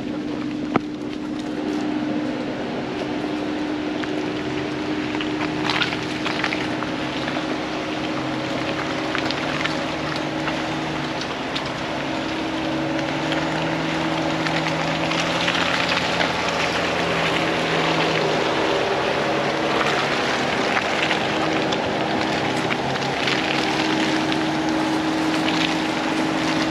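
Ford Bronco driving on an off-road trail: a steady engine drone over tyre and wind noise, with scattered short knocks and rattles.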